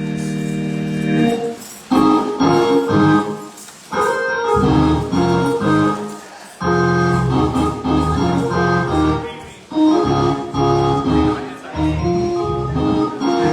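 Organ playing: a held chord for about the first second, then short rhythmic phrases of chords over a bass line that break off briefly every two to three seconds.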